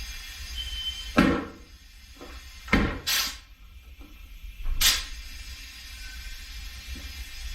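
Four short knocks or scrapes from parts being handled in the shop, over a steady low hum.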